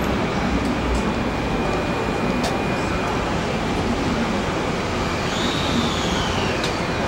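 Steady noise of a train platform beside a stopped 209-series electric commuter train, with a faint whine that rises and then falls about five seconds in.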